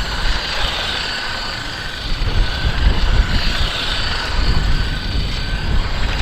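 Small electric motors of RC toy cars whining as they drive, the pitch drifting up and down as they speed up and slow down, over a low rumble.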